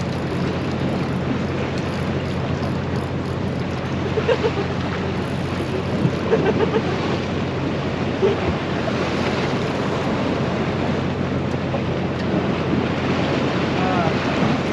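Steady wash of sea surf on a rocky shore, with wind buffeting the microphone.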